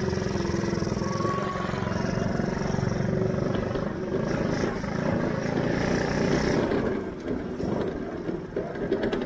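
Go-kart engine running while the kart is driven along. About seven seconds in, the sound drops and becomes uneven.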